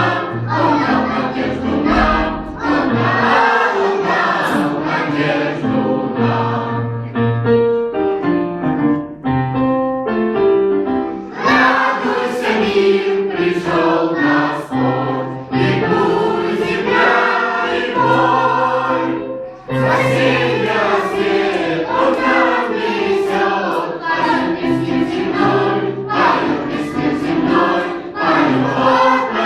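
Choir singing, with sustained held notes and a quick run of short notes about seven seconds in.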